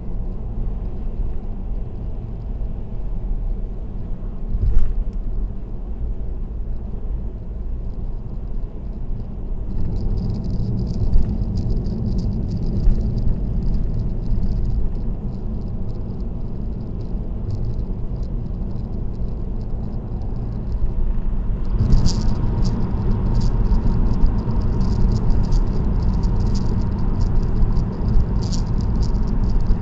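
Car driving on an expressway, a steady low rumble of tyres and road. A light clicking rattle joins about a third of the way in and grows busier about two-thirds through, when a faint steady whine also comes in.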